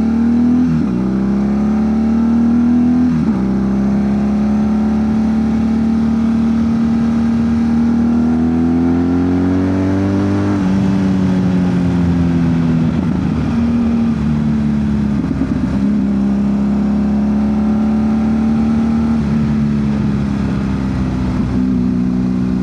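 BMW R1200 GS Adventure boxer twin running through a GRmoto slip-on exhaust with the baffle out while riding: two upshifts in the first few seconds, a long pull as the revs climb, then the throttle closes about ten seconds in and the exhaust crackles and pops back on the overrun before settling into steady cruising.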